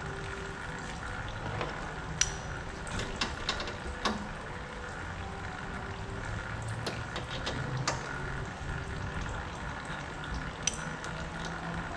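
A few sharp metallic clicks and knocks, as of tools and parts being handled, over a steady hissing background.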